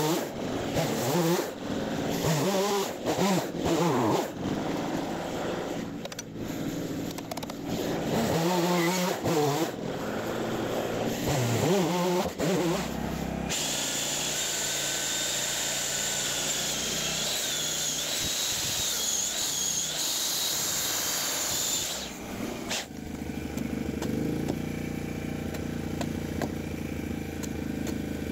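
Electric chainsaw cutting a log, its motor pitch rising and falling as it bites, for about the first half. Then a drill with an auger bit boring into timber, a steady high whine that stops about two-thirds of the way through. In the last few seconds a small engine hums steadily.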